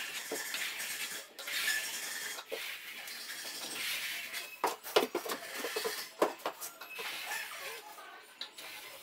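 Steel plastering trowel scraping across a freshly plastered wall in repeated strokes as the plaster is flattened and polished. A run of sharp clicks and taps comes about halfway through.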